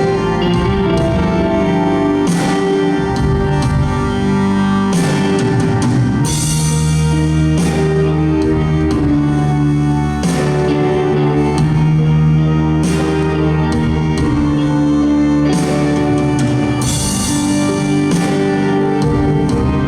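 Live rock band playing: electric guitar over drums and long held chords, with cymbal crashes every few seconds.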